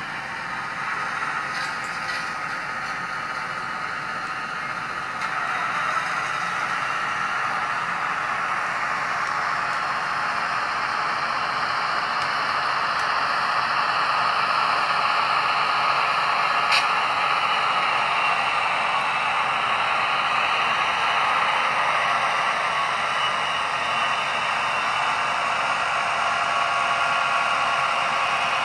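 Model diesel Genset locomotive running on its Tsunami sound decoder: a hissy engine sound through the small onboard speaker, without deep bass. It grows louder in steps, about six seconds in and again midway.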